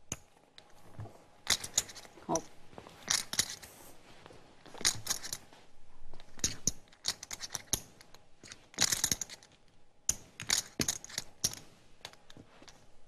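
Poker chips clicking together in short, irregular clatters every second or so, as chips are handled and stacked at the table.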